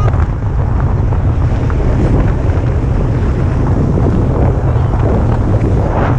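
Loud, steady wind buffeting the microphone of a camera on an inflatable tube towed at speed, with water rushing and spraying past the tube.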